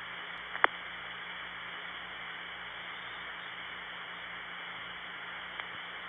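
Steady hiss of a 1970s long-distance telephone line, with one sharp click about two-thirds of a second in and a faint tick near the end: the SP1 tandem switch's sound on taking the number, then its soft cut-through tick.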